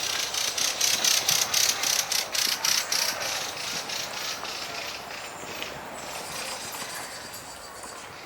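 Rapid, even ratchet-like ticking, about five ticks a second, loudest over the first three seconds and then fading away.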